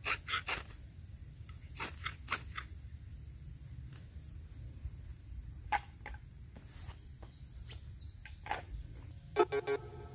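A knife's spine is scraped down a ferro rod to throw sparks into fire-starter tinder: three quick strokes at the start, four more about two seconds in, then a few scattered scrapes. A steady high insect drone runs underneath, and music starts near the end.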